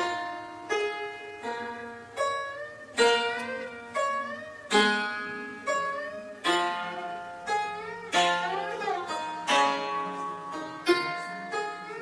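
Chaozhou zheng (Chinese zither) played solo: single plucked notes, each ringing and dying away, about one a second. Several notes bend and waver in pitch as the strings are pressed beyond the bridges, around three, five and eight seconds in.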